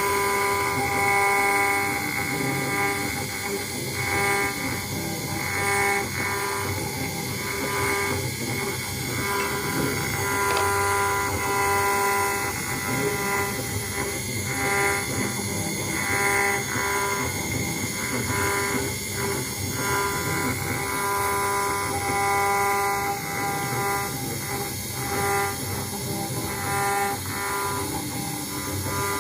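CNC router engraving a brass plate: a steady machine whine made of several pitched tones that break off and come back about once a second.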